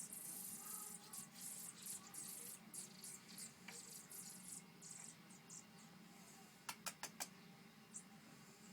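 Robin nestlings making faint, high-pitched begging cheeps, many short calls in quick succession that thin out after about five seconds. A few sharp clicks come about seven seconds in.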